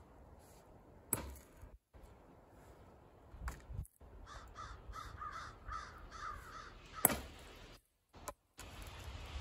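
Axe blows splitting firewood rounds on a chopping block: a few sharp knocks, the loudest about seven seconds in. In the middle a bird calls about six times in quick succession.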